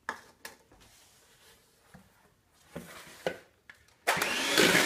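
A few light clicks and knocks, then about four seconds in an electric hand mixer switches on and runs steadily, its beaters creaming butter with brown and white sugar in a plastic mixing bowl.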